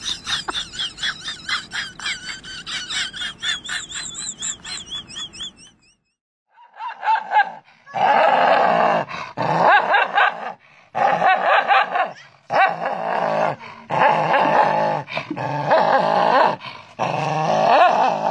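A dog barking and snarling in loud, fierce bouts that start after a short silence about six seconds in. Before that comes a fast run of high, wavering squeaky pulses.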